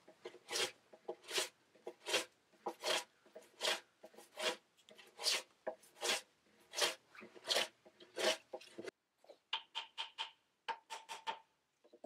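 Hand plane cutting shavings along a wooden beam in even, repeated strokes, one rasping pass about every three-quarters of a second. About nine seconds in the sound cuts to shorter, quicker scraping strokes with a slight ring.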